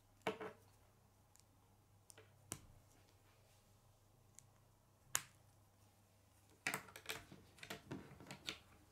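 K'nex plastic rods and connectors clicking as they are snapped together: a few separate sharp clicks, then a quick run of plastic clicks and taps near the end as the assembled frame is handled and laid on a wooden table.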